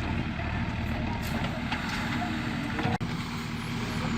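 JCB 3DX backhoe loader's diesel engine running steadily under work, a constant drone with a steady hum, and a few light clanks over it.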